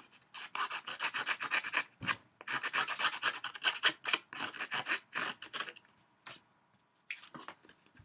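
Prima distressing tool's razor blade scraping along the edges of paper to fray and shred them: a rapid series of short, rough strokes, several a second. The strokes stop about six seconds in, with one short burst near the end.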